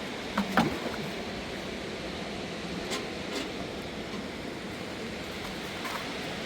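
Steady rush of a fast, swollen mountain river. A short clatter of sharp knocks about half a second in, the loudest sound, with a few fainter clicks later on.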